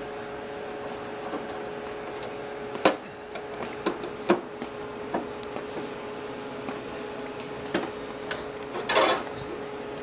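Screwdriver working the last screws out of a sheet-metal access panel on a cryostat cabinet: scattered metallic clicks and taps, then a rough scraping rattle about nine seconds in as the panel comes off. A steady hum runs underneath.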